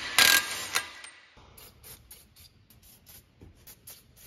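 A cordless impact wrench fires in short bursts on a front hub nut, then an aerosol can sprays onto the hub in a quick series of short hisses.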